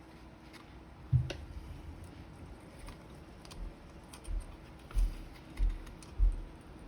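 Handling noise: a series of soft, low thumps, five in all, the last four coming about every half-second to second near the end, with scattered light clicks between them.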